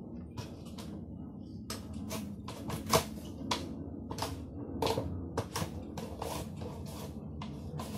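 Carrot being sliced on a plastic mandoline slicer: the hand guard is pushed quickly back and forth over the blade, each stroke a short scrape and clack, in an uneven run with the loudest stroke about three seconds in.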